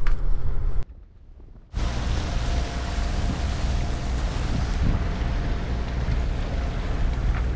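Wind buffeting the microphone over the rush of the sea aboard a sailing catamaran beating into the wind, after a short quieter break about a second in.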